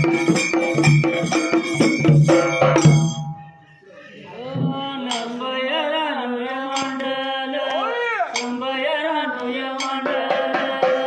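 Dhangari ovi: a big dhol and ringing hand cymbals beat out a steady rhythm that breaks off about three seconds in. A single man's voice then sings a long, wavering, ornamented phrase nearly unaccompanied, and the percussion picks up again near the end.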